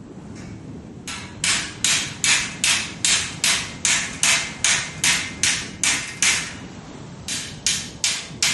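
Hammer blows in a steady rhythm, about two and a half a second, starting about a second in: a run of about fourteen, a pause of about a second, then four more. Each strike is sharp and dies away quickly, over a low steady rush.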